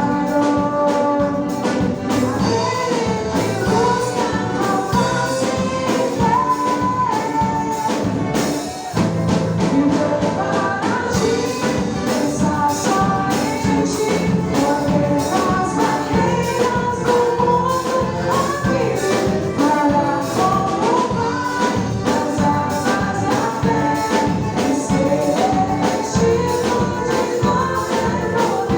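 A band playing a song with a lead voice singing over a steady beat, with a brief drop about nine seconds in.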